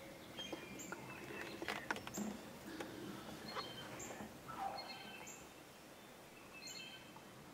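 Faint bird chirps and calls over low outdoor ambience, with a few soft clicks.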